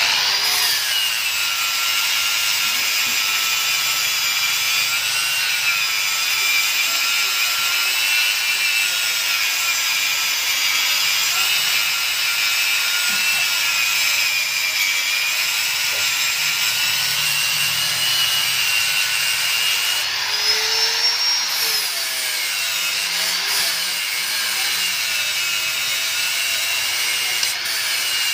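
Electric angle grinder running at speed with its disc cutting into a scooter's metal exhaust muffler: a loud, steady high whine with a grinding rasp. The pitch sags and wavers as the disc bites, and rises and falls briefly about twenty seconds in.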